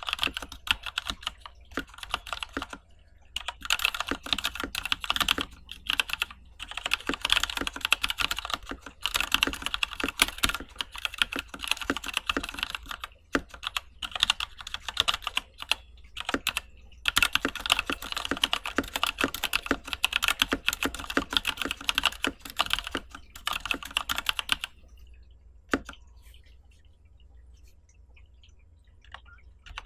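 Mechanical keyboard with unlubed Novelkeys Cream linear switches on a stainless steel plate, being typed on in fast continuous runs of keystrokes with short breaks. About five seconds before the end the typing stops, leaving only a couple of single key presses.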